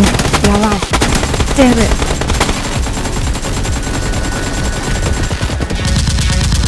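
Rapid automatic gunfire, a continuous dense volley of shots, with a couple of short shouts in the first two seconds.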